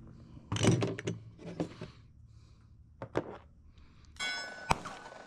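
Guns and gear being handled on a folding table: thunks and knocks, two sharp clicks about three seconds in, then a metallic clang that rings on near the end.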